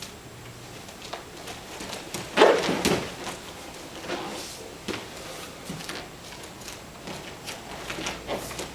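A person taken down onto a padded gym mat lands with a heavy thud about two and a half seconds in, the loudest sound here. Lighter thuds and shuffles of bare feet on the mat follow.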